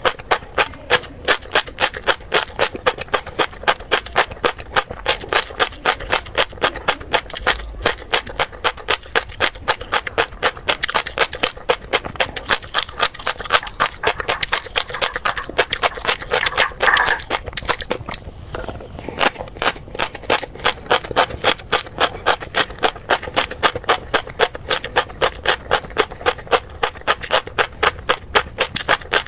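Close-miked chewing of crunchy tobiko (flying fish roe): a fast run of sharp crunches, about four a second, with a short break about two-thirds of the way through.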